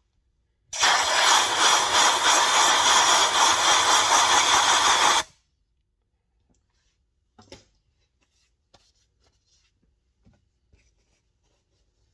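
Compressed air hissing through a brake master cylinder in one steady blast of about four and a half seconds, starting and cutting off abruptly, to blow dirt out of the bore. A few light clicks of the part being handled follow.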